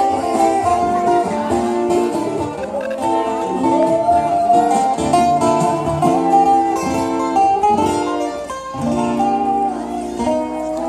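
Music with a plucked guitar.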